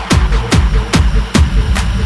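Hardstyle electronic dance music: a hard, distorted kick drum with a falling pitch about every 0.4 s, over a bass line.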